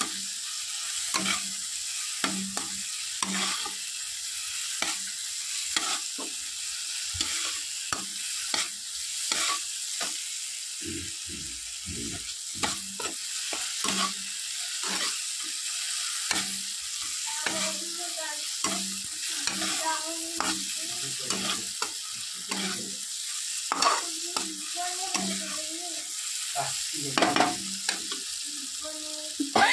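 Flat metal spatula scraping and stirring a thick tomato-onion masala in a metal kadai, in repeated strokes about once a second, over a steady sizzle of the masala frying in oil as it cooks down.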